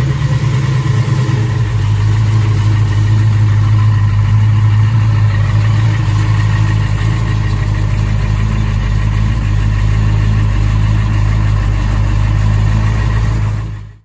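1968 Dodge Charger R/T's V8 idling: the pitch drops slightly in the first second or so, then the engine runs steadily until it cuts off abruptly at the end.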